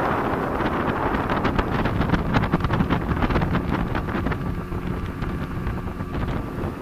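Speedboat running at speed over the water, with heavy wind buffeting the microphone. A quick run of slaps from the hull on the water comes about two seconds in.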